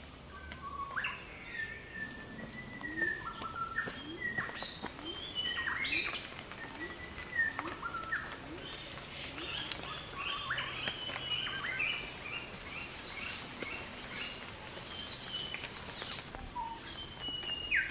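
Birds singing: a string of clear whistled notes that step up and down in pitch, turning into quicker, closer-spaced chirps in the second half.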